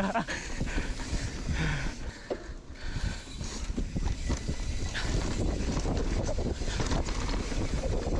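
Wind buffeting the microphone while riding a mountain bike down a trail, with a steady rumble and irregular knocks and rattles from the bike over the ground.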